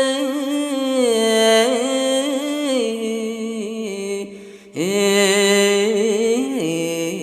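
Khmer smot chanting: a single male voice holds long, ornamented notes that waver and slide in pitch, with a short break for breath about four and a half seconds in.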